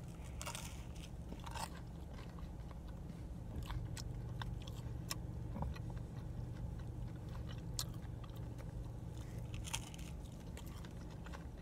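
A person biting into and chewing a slice of cheese pizza, with scattered small mouth clicks, over a faint steady low hum.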